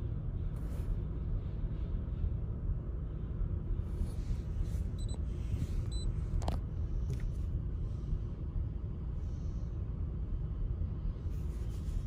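The 2019 Chevy Equinox's 1.5-litre turbocharged four-cylinder idling, a steady low rumble, while it runs rough from a misfire (general misfire code P0300). Two faint short high beeps sound near the middle.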